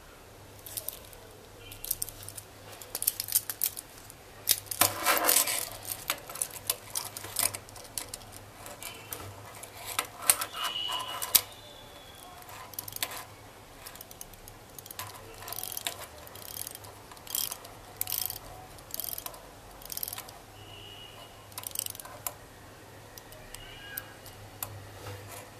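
Steel watch handled in the fingers: the stainless steel bracelet links jingle as it is turned over. Then the unidirectional diver's bezel is turned, giving a string of separate sharp ratchet clicks.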